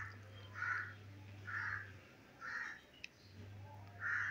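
A crow cawing repeatedly, five caws about a second apart, over a low steady hum, with a single sharp click about three seconds in.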